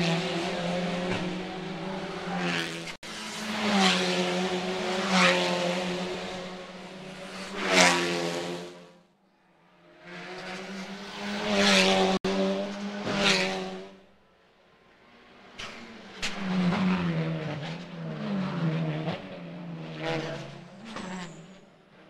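Racing touring cars passing one after another at full throttle, their engines revving up and down through the gears. The passes swell and fade, with a brief lull about nine seconds in and quieter cars in the second half.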